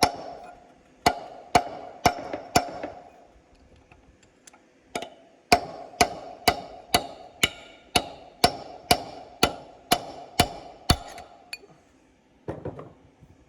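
Hammer striking a steel punch to drive a new bearing race down into a combine's final drive housing, each blow ringing. A few blows, a short pause, then a steady run of about two blows a second that stops near the end.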